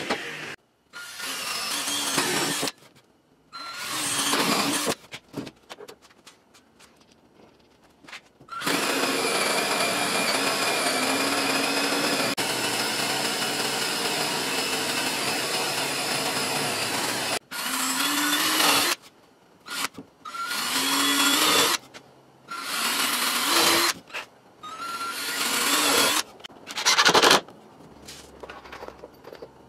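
Cordless drill with a hole saw running steadily for about eight seconds as it cuts through a pressure-treated board, then the drill starting and stopping in several short bursts, each opening with a rising whine. A few short bursts of power-tool noise come before it.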